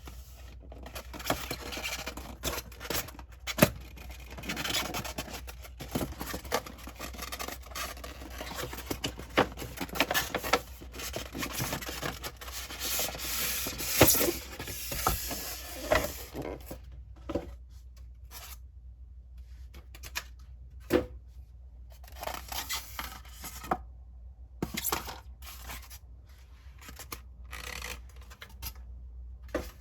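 Packaging being handled and opened: continuous rubbing and rustling with frequent sharp clicks and taps for about the first half, then only scattered clicks and short rubs. A steady low hum lies underneath.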